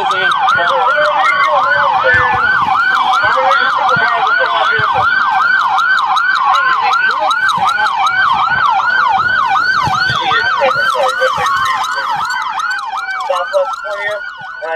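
Police siren on yelp, sweeping up and down quickly about three to four times a second, with a second siren's slower wail gliding under it. Near the end the yelp stops and the wail goes on alone. Short clicks and knocks sound in between.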